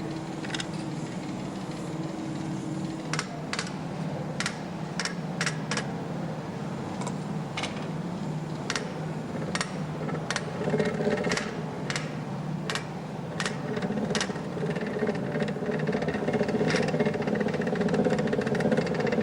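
Belt-driven flat-forging power hammer of a scythe forge running on a test run, its hammer striking the anvil saddle in a rapid, steady clatter. Sharper knocks stand out irregularly, and it gets louder near the end.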